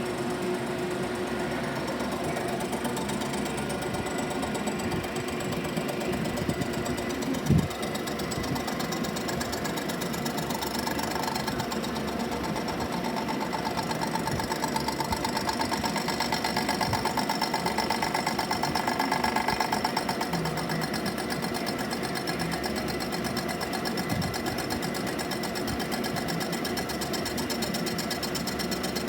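DeVlieg milling machine cutting a cast-iron exhaust manifold: a steady rapid chatter of the cutter over the machine's running hum. There is one sharp knock about seven seconds in, and the cut grows louder for several seconds past the middle.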